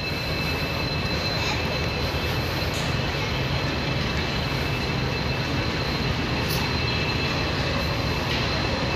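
WDP4D diesel locomotive's engine running steadily, a low rumble with a thin, steady high whine over it.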